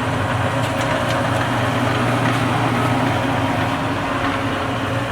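Jet 13 x 40 inch gap-bed engine lathe running with its half nut engaged, the carriage fed along by the lead screw. It is a steady hum of the 2 hp single-phase motor and the gearing, with a few faint ticks.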